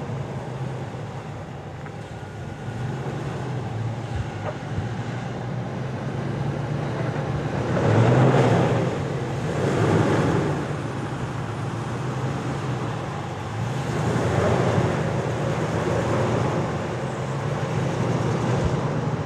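Dodge Ram Power Wagon pickup's 5.7-litre Hemi V8 running under load as the truck crawls up a slickrock ledge, the engine note rising in swells several times, louder about eight, ten and fourteen seconds in, as the driver gives it throttle over the rocks.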